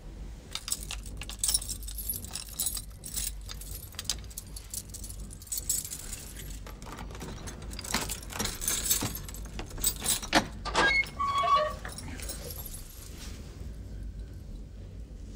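A bunch of keys jangling and rattling as a key is worked in the lock of a heavy iron-studded wooden door, with many sharp metallic clicks. About eleven seconds in there is a short creak falling in pitch as the door is swung open.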